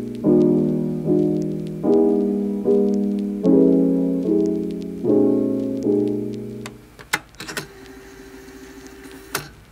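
Background music: soft piano chords, a new chord a little faster than once a second, dying away about seven seconds in. A few clicks follow in the quieter stretch near the end.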